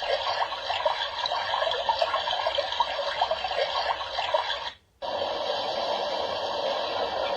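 FM radio static from the Suright sunrise alarm clock's speaker, a steady hiss with crackle between stations. It cuts out briefly about five seconds in, then the hiss resumes.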